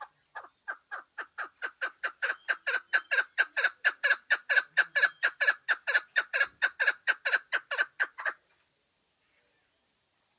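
Chukar partridge giving its rally call: a rapid, even run of chuck notes, about four a second. The notes grow louder over the first few seconds, hold steady, then stop abruptly about eight seconds in.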